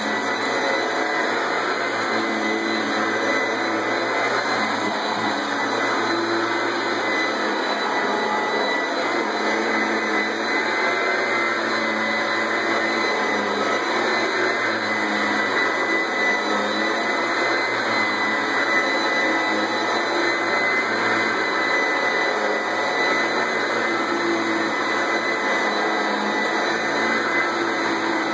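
A 1989 Hoover Elite 200 upright vacuum cleaner, with a 5-amp direct-air motor and a new brushroll, running steadily with a constant high whine.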